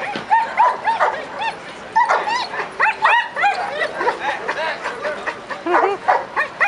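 Dogs barking and yipping over and over, short high barks several a second at different pitches, overlapping.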